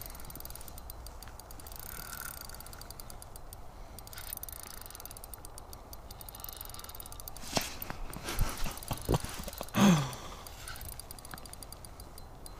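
Spinning reel on an ice fishing rod being cranked against a heavy fish, a steady mechanical ratcheting, with a few sharp clicks and a louder short sound about ten seconds in.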